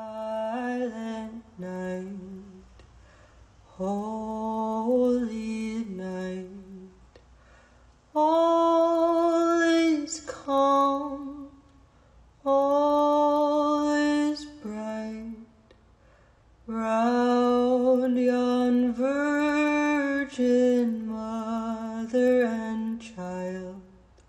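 Background music: a woman singing a slow melody in phrases of long held notes, with short pauses between phrases.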